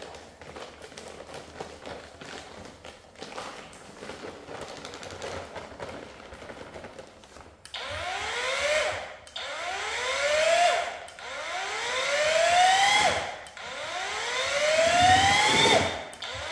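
Cordless paddle mixer running in a bucket of cornice adhesive. For the first half there is only low noise. Then, four times in a row, its motor whine rises in pitch as it speeds up and drops away, mixing really fast.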